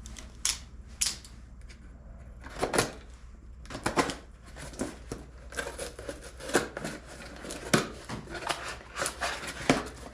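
Irregular clicks and clanks of a sheet-metal tool chest's drawers and their contents being handled, with a few sharper knocks among them.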